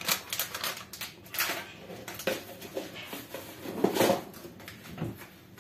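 Crinkling and rustling of a small spice packet being handled and opened, mixed with light clatter of kitchen items. The loudest clatter comes about four seconds in.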